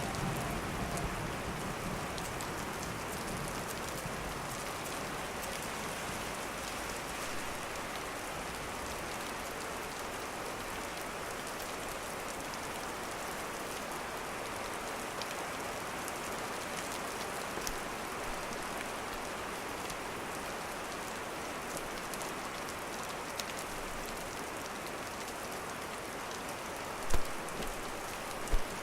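Steady heavy rain, an even hiss that does not change. Near the end come two sharp thuds about a second and a half apart.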